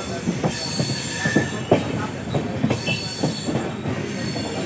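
Passenger train running, heard from inside the coach: a steady rumble with irregular knocks and rattles of the wheels and carriage, and short high-pitched squeals now and then.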